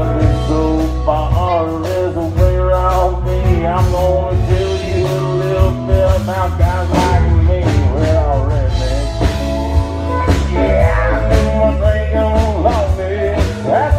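Live country band playing loudly, a saxophone carrying a bending lead line over electric bass and a steady drum beat.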